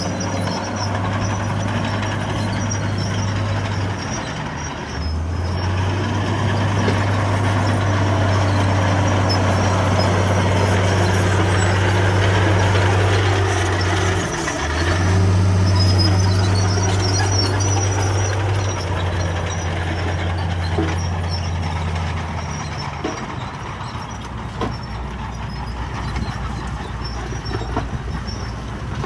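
Diesel engine of heavy earthmoving machinery running with a steady low drone. Its pitch shifts briefly about four and fourteen seconds in, and the drone drops away a little past twenty-two seconds.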